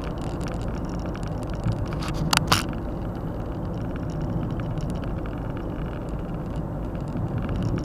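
Steady road and engine noise of a car driving along a highway, heard from inside the cabin. Two short sharp clicks come about two and a half seconds in.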